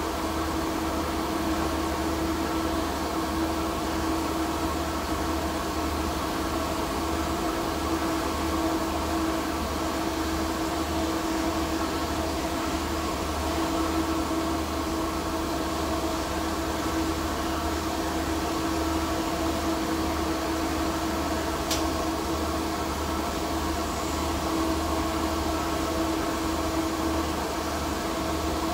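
TIG (argon) welding on a P22 alloy steel pipe joint: a steady arc hum and hiss with a few constant tones, unbroken. A single sharp click about three-quarters of the way through.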